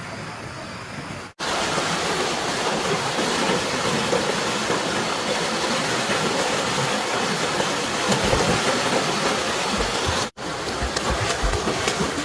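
Rushing stream water, a steady loud wash, broken twice by abrupt cuts about a second in and near the end.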